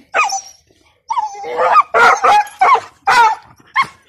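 A beagle vocalizing excitedly in high, wavering cries between whining and yelping: one short cry, then about six in quick succession. The excited cries of a dog greeting its owner.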